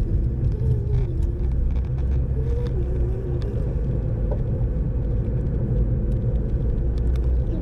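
Road and engine noise heard from inside a moving car's cabin: a steady low rumble.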